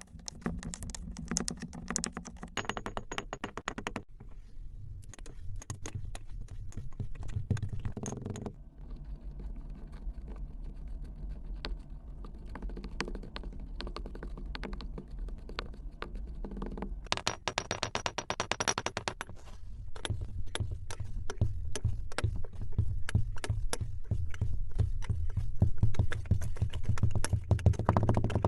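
Kinetic sand being crushed and crumbled close up, a dense run of fine crackling and crunching clicks. It comes in several stretches that change abruptly, and is loudest in the last third.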